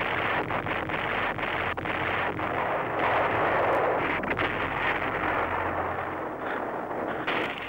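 Artillery fire and shell explosions, many blasts following one another in a dense, continuous din.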